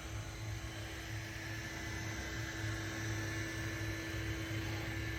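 Steady electrical hum with a faint steady whine over a background hiss, from the idle Longer Ray5 10W laser engraver.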